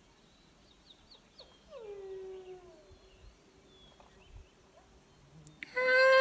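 Wolves calling: a faint, distant whine that slides down in pitch about two seconds in and trails off, with faint high yips before it. Near the end a loud, close, drawn-out howl begins.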